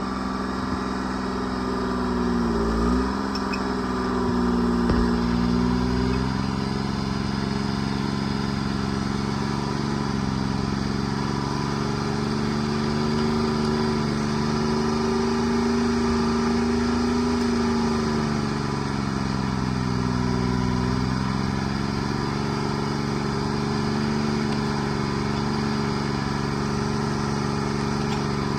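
Treefarmer C5 forwarder's engine running steadily, its pitch sagging briefly about three seconds in and again for a few seconds in the second half as it takes load while working the logs.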